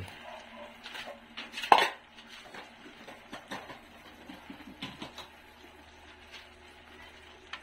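Metal kitchenware clanking and clinking: one sharp, loud clank a little under two seconds in, then scattered lighter clinks.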